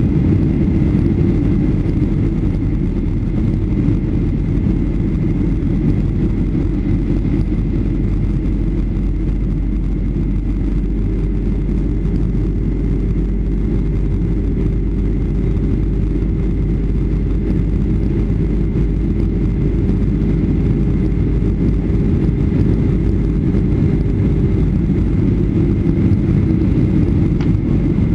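Steady cabin noise of a Boeing 757-200 in descent: a deep rumble of engines and airflow, with a faint high whine throughout. A lower steady hum joins about eleven seconds in and drops out a little before the end.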